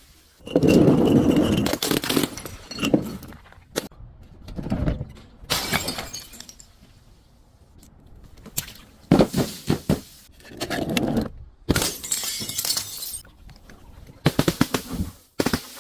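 Glass bottles breaking: a string of separate crashes, each followed by a spill of crackling, crunching shards.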